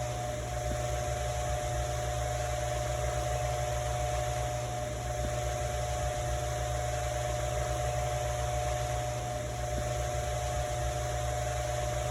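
Ventisol electric fan running steadily: an even rush of air over a constant low motor hum and a steady mid-pitched whine.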